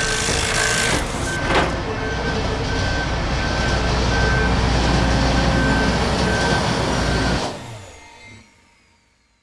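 Heavy construction vehicle's engine rumbling while its reversing alarm beeps at a steady, even rhythm, with a single knock about one and a half seconds in. The sound cuts off about seven and a half seconds in and fades to silence.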